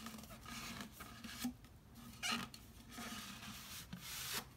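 A rolled paper print and its cardboard mailing tube being handled, rubbing and rustling in short scraping spells, with a couple of light knocks.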